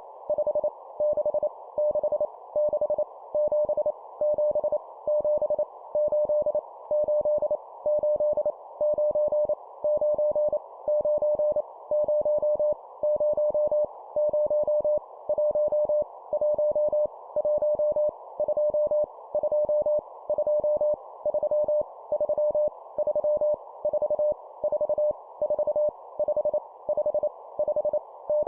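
Morse code (CW) sent at 25 words per minute: a single steady tone keyed on and off in fast dots and dashes, over a steady hiss. It is sending numbers, each repeated three times, as copy-speed practice.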